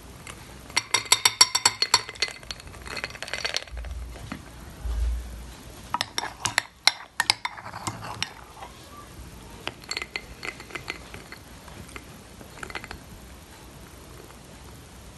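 Metal spoon clinking and scraping against glassware while scooping thick whipped coffee foam out of a glass bowl and onto iced milk in a glass: a quick run of clinks about a second in, then shorter runs of taps, with a dull low thump around four to five seconds in.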